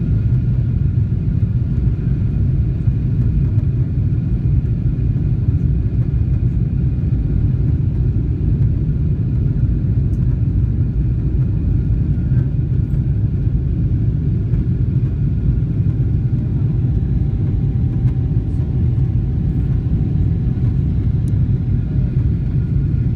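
Boeing 777-300ER's GE90-115B engines and airflow heard as a steady low rumble inside the passenger cabin in the climb after takeoff, with a few faint steady tones above it.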